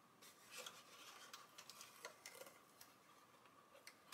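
Faint handling noise: hands pressing masking tape and a paper towel down onto a plastic model tank hull, with a few light clicks and rustles.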